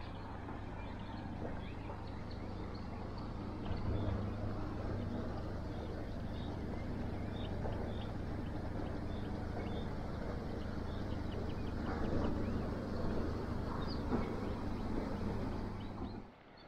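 River cruise ship's engines droning as it passes, a steady low even hum. A small bird chirps repeatedly above it.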